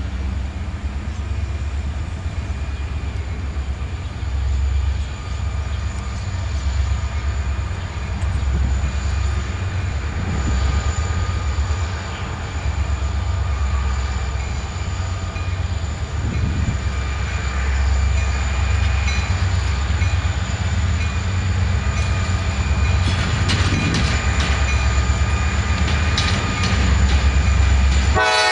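Three EMD six-axle diesel locomotives, an SD40M-2 and two SD40-2s, pulling a freight train with a steady low rumble that grows slowly louder as they approach.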